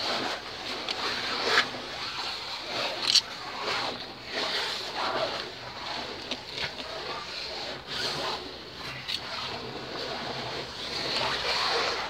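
Footsteps going down a stone spiral staircase: shoes scuffing on the steps, with clothing rustle and a few sharp knocks along the way.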